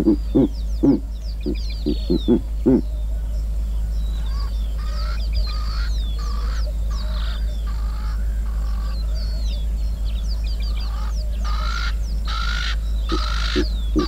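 Verreaux's eagle-owl (giant eagle-owl) giving a series of deep, short grunting hoots over the first three seconds. Other birds call throughout, with high falling whistles and, from about halfway, harsh repeated calls that are loudest near the end.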